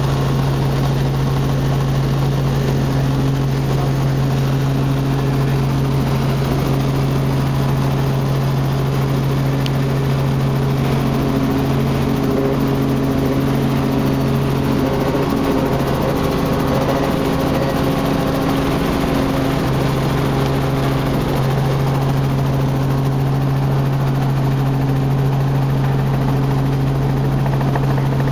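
Cabin noise inside a Robinson R44 helicopter descending to land: the steady, even drone of its rotors and six-cylinder Lycoming piston engine, with a strong low hum.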